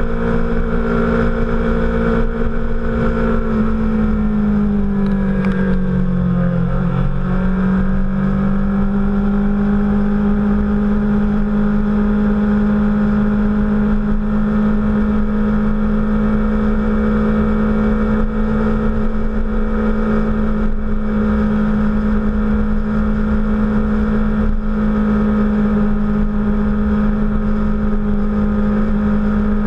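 Sport motorcycle engine running at a steady cruise. Its note dips about five seconds in, then holds steady a little lower. Steady low wind rumble on the bike-mounted camera's microphone.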